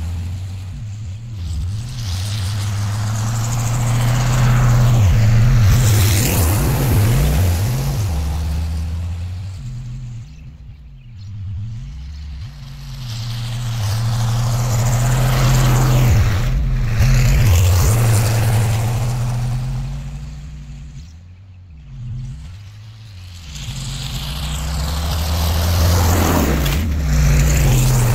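Diesel engine of a John Deere cab tractor working under load as it pulls a field cultivator through sod. It grows louder as the tractor passes close and fainter as it pulls away, three times.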